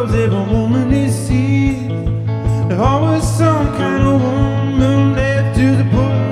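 Solo electric guitar played in a country-blues style: a steady low bass note and a regular low pulse under sliding melody notes.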